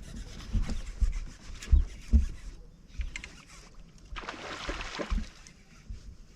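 Knocks and rubbing on a kayak as it is handled, a few low thumps, with a short rushing noise about four seconds in.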